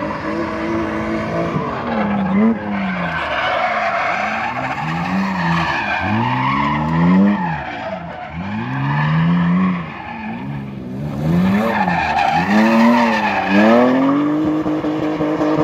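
BMW E36 with an M54B30 3.0-litre straight-six drifting: the engine revs climb and drop again and again with the throttle while the rear tyres squeal and skid across the asphalt.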